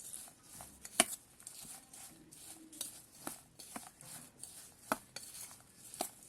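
A utensil clinking and scraping against a dish while crispy fried corn is tossed with salt and chili powder. Scattered sharp clicks, the loudest about a second in and two more near the end, over a light rustle of the corn.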